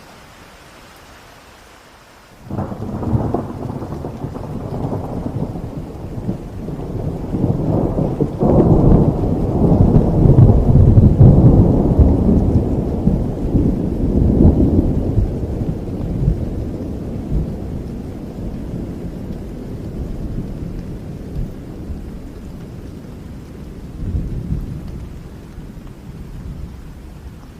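Thunder rolling over steady rain. It breaks suddenly about two and a half seconds in, builds to its loudest about ten seconds in, and slowly dies away, with a smaller rumble near the end.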